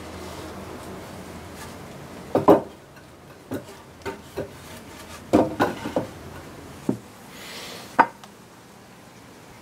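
A thick wooden plank being shifted on wooden trestles: a series of wooden knocks and thumps, the loudest about two and a half seconds in, a quick cluster around the middle, and one sharp knock near the end.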